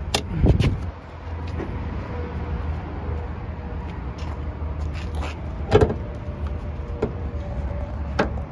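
Ford Fiesta ST hood being opened: a sharp click and low thud as the interior release lever pops the hood latch, then a louder knock a few seconds later as the hood is freed from its safety catch and raised, with a few lighter clicks near the end. A steady low rumble runs underneath.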